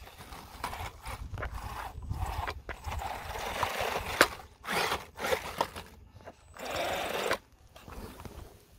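WLToys 12427/12428 RC buggy's electric motor and gearbox whirring in stop-start bursts as it crawls over concrete rubble, tyres scrabbling on the rock, with a sharp knock about four seconds in.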